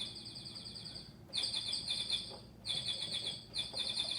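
Electronic keyboard's bird-chirp sound effect: rapid high warbling tweets, played as four short bursts of about a second each.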